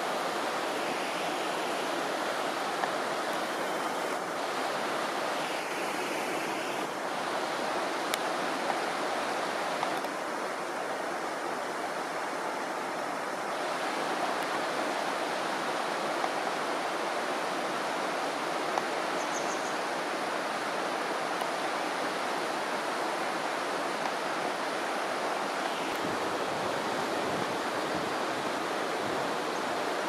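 Shallow river running steadily over stones: a constant rushing of flowing water.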